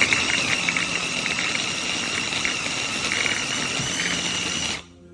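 A 400 W electric mini food processor running: a steady high motor whine over a harsh rushing noise, which cuts off suddenly near the end.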